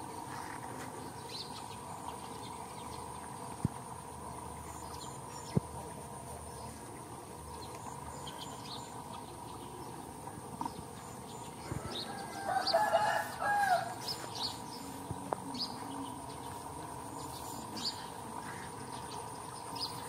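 A rooster crows once, a drawn-out call about twelve seconds in and the loudest sound here, over a faint steady insect buzz and a few short bird chirps.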